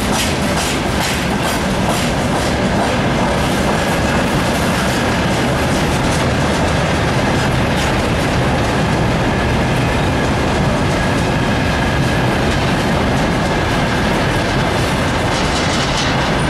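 Freight train wagons running past at speed: a loud, steady rumble of steel wheels on rails, with the clickety-clack of wheels over rail joints, clattering more near the start and again near the end.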